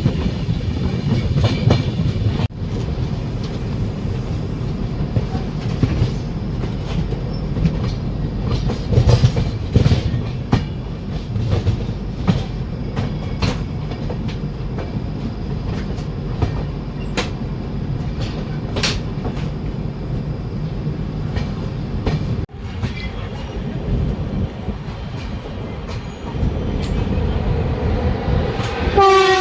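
Express passenger train running, with a steady rumble and wheels clicking over rail joints. A horn begins to sound right at the very end.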